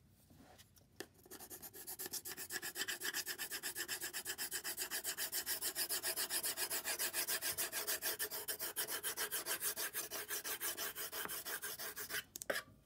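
Fast back-and-forth scribbling of a green crayon or colouring pencil on paper, roughly six scratchy strokes a second. It starts about a second in and stops near the end.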